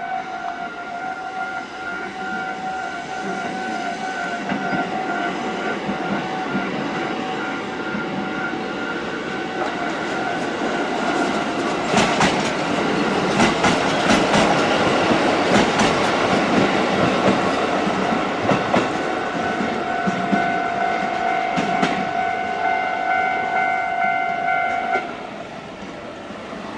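A Japanese level-crossing warning bell rings with a steady pulsing ding as a Kotoden electric train runs through the crossing. The train's rumble builds and peaks in the middle with rapid wheel clacks over the rail joints. The bell cuts off suddenly near the end, once the train has cleared.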